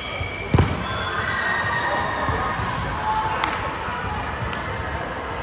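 Basketball play on an indoor court: a ball bounces hard once about half a second in, with short high sneaker squeaks on the floor and a background murmur of voices in the hall.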